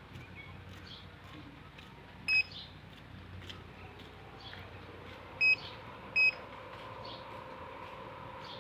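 Universal air-conditioner control board's buzzer giving three short, high beeps, about 2.4, 5.5 and 6.2 seconds in, as it answers presses on the remote. The beeps show that the board is receiving the remote's signal.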